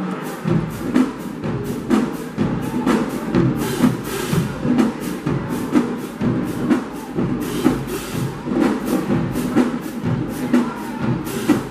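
College marching band drumline playing a marching cadence on snare drums, bass drums and cymbals, a fast steady beat of sharp strikes. The deep bass drum beats come in just after the start.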